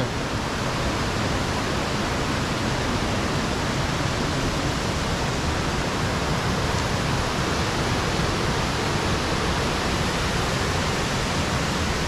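Waterfall rushing: a steady, even sound of falling water that does not change.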